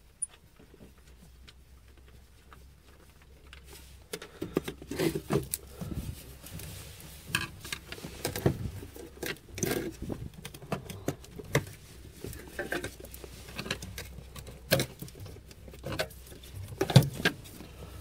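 A socket wrench and metal parts clicking, knocking and rattling as a cover plate held by a couple of 10 mm bolts is unbolted and pulled off. The irregular handling noise starts about four seconds in, and one sharp knock near the end is the loudest.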